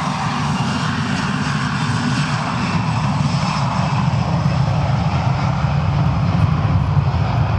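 Boeing 737's twin turbofan jet engines at take-off power as the airliner accelerates down the runway and rotates: a steady rumble and hiss with a faint high whine, growing slowly louder.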